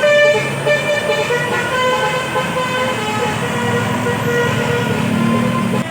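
Tour bus's 'telolet basuri' multi-tone musical horn playing a quick run of changing notes that fades out about three seconds in, over the low running of the bus engine.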